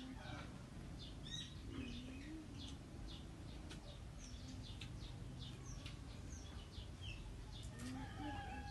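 Small birds chirping repeatedly in the background, with a low cooing call, like a dove's, about two seconds in and again near the end.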